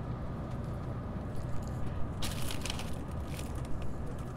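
Steady low rumble inside a moving passenger vehicle, with a few short rattles and clicks about two seconds in and again a little later.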